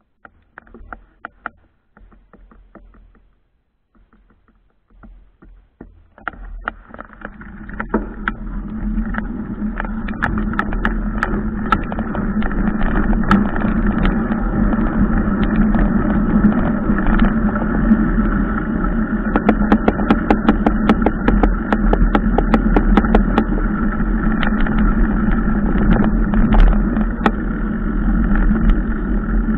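Riding noise picked up by a camera mounted on a mountain bike on a dirt road: a few scattered clicks and knocks, then from about six seconds in a loud, steady rumble of tyres and wind with frequent sharp rattles and clicks from the bike and mount.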